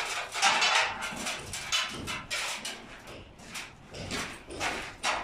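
Irregular knocks and scraping, the clatter of building-site work.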